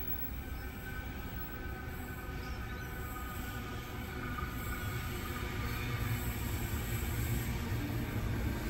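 Tangara electric train approaching, its rumble on the rails growing steadily louder as it draws near.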